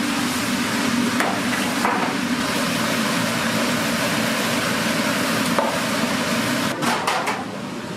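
Cooking at a hot pan: a steady frying hiss with a few sharp metal clinks of a spatula striking the pan, several of them close together near the end.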